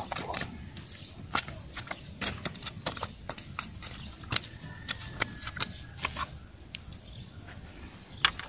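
A live fish flopping on an asphalt road, its body slapping the tarmac in irregular sharp slaps.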